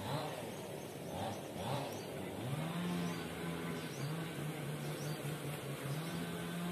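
Low, droning purr of a wild quail's call, starting about two and a half seconds in with a short rise in pitch, then held steady with brief breaks.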